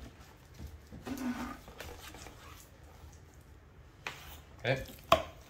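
Curved boning knife slicing through a large boneless beef chuck roll, mostly faint, with a short low hum-like sound about a second in. Near the end come a few knocks and one sharp click as the knife reaches the cutting board and the roast slab comes free.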